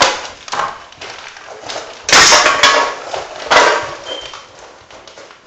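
Husky puppies scrambling at a plastic bowl of dry kibble on a tile floor: knocks and clattering of bowl and food, the loudest a half-second rattle about two seconds in.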